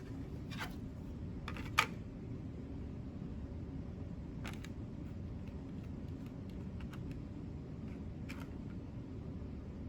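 Steady low room hum with a handful of faint clicks and light taps, the sharpest about two seconds in, from glue being handled and spread over a light switch plate.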